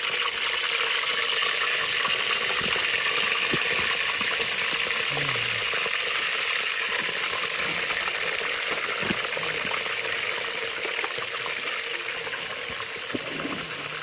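Mutton pieces frying in hot oil in an aluminium pot: a steady sizzling hiss with many small crackles, easing a little near the end.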